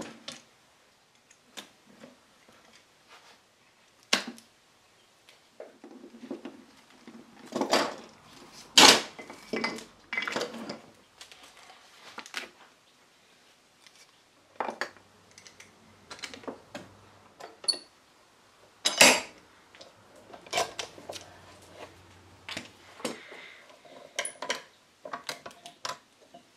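Bench handling sounds: metal bar clamps and wooden blocks being moved and set down. They come as irregular clicks and knocks, with a few sharp clacks, the loudest about nine and nineteen seconds in.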